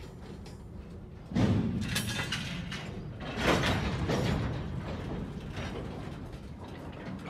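Freight cars rolling slowly through a switching yard: a steady rumble of wheels on rail, broken by a sudden loud metallic clank about a second and a half in and another clanking jolt around three and a half seconds, the sound of couplers and car bodies banging as the cut moves.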